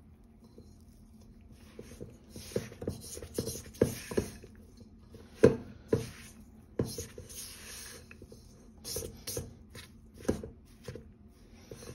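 A spatula scraping and knocking against a stainless steel mixing bowl as crumbly cookie dough is cut and pressed together, in irregular knocks and short scrapes; the sharpest knock comes about five and a half seconds in.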